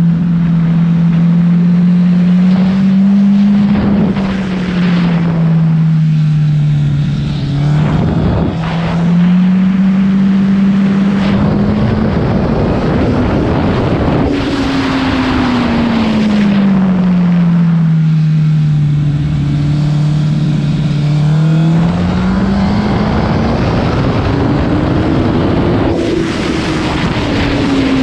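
Honda CBR1000 sport bike's inline-four engine running under way. Its note rises and falls slowly several times as the throttle opens and closes, climbing highest about halfway through and again near the end. Wind rushes over the microphone throughout and is strongest when the engine note is highest.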